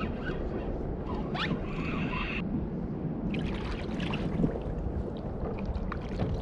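Wind buffeting the microphone over a low rumble, with the whir of a spinning reel being cranked in the first half that stops abruptly. It is followed by scattered clicks and splashes as a small rockfish is hauled up to the kayak.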